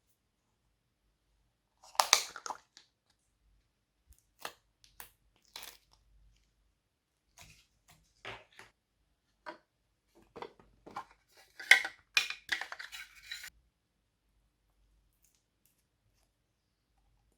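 Slime and its mix-ins being handled, making irregular short crackling, crunching noises. The loudest bursts come about two seconds in and again around twelve seconds, and the noises stop a few seconds before the end.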